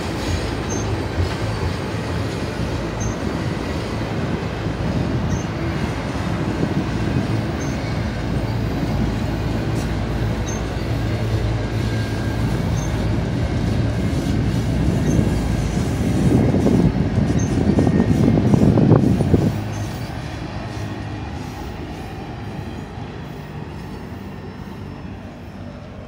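Double-stack container freight train rolling past: a steady rumble and rush of steel wheels on the rails. It grows to its loudest about 16 to 19 seconds in, then drops off suddenly and fades as the end of the train passes and draws away.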